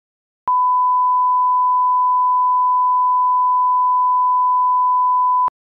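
A steady, pure test tone at about 1 kHz, like a reference tone, held for about five seconds with a faint click as it switches on and off.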